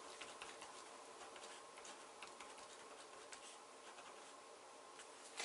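Faint scratching and small ticks of a pen writing on a paper pattern, over low steady room hum.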